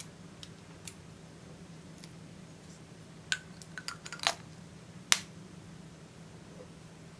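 Silver lipstick case clicking as it is handled and its cap is pushed back on: a few light clicks, then a quick run of sharp clicks with a short ring a little after three seconds in, and one louder click about five seconds in. A faint low hum sits underneath.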